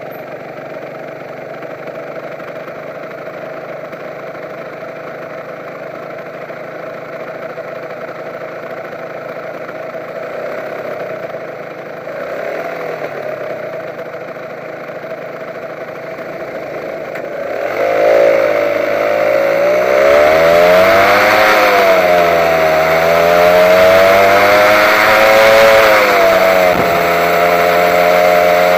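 Honda NSR150 two-stroke single-cylinder motorcycle engine idling at a standstill. About 18 seconds in it revs up and pulls away: the pitch climbs, dips at a gear change, climbs again and drops at a second shift, then holds steady.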